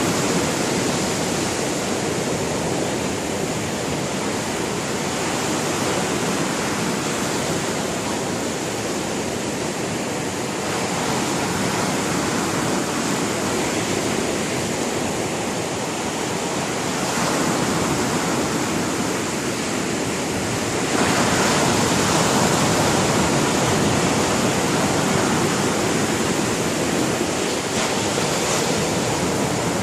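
Sea waves breaking and washing onto the shore in a continuous rushing surf that swells and eases, with a louder wave surging in about two-thirds of the way through.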